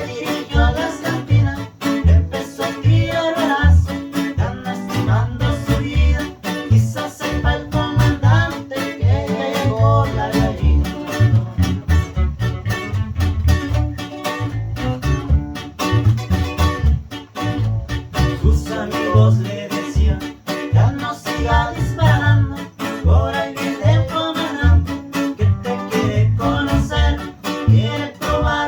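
Guitar music: plucked guitar lines over a steady beat and low bass notes.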